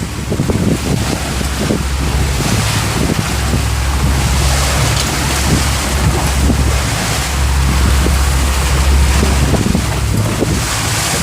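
Strong wind blasting across the microphone on a small boat at sea, a loud steady low rumble with the wash of rough waves around the hull.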